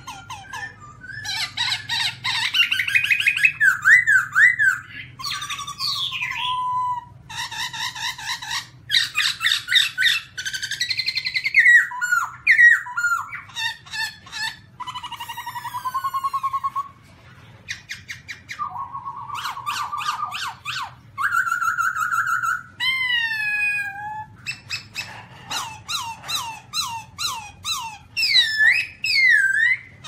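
Black-throated laughingthrush singing a long, varied song of whistled phrases, fast trills of repeated notes and sliding whistles, with a brief pause about halfway through.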